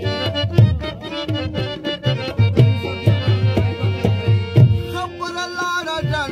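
Pashto folk song on harmonium with a hand drum beating a quick, steady rhythm under the sustained reed chords. A man's singing voice comes in about five seconds in.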